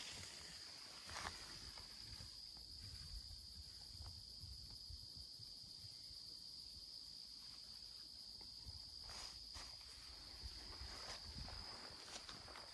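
Crickets trilling in one steady, continuous high-pitched chorus. A few soft footsteps in grass near the start and again after about nine seconds.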